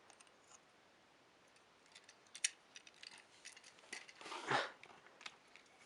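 Faint small clicks and taps of die-cast metal and plastic toy vehicles being handled, scattered through the second half, with a brief soft rustle about four seconds in.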